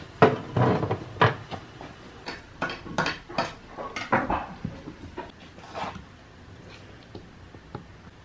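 Irregular knocks and clatters of kitchenware being handled, about a dozen over the first six seconds, some with a short ring, then only a few sparse clicks.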